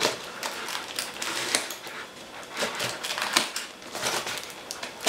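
Scissors snipping through a parcel wrapped in brown packing tape, with the crackle and crinkle of the wrapping as it is cut and handled: an irregular run of sharp clicks and rustles.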